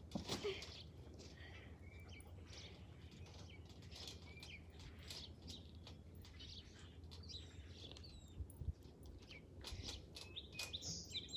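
Small birds chirping and twittering, faint, with many short high calls scattered throughout. A couple of short low thumps come about two thirds of the way in.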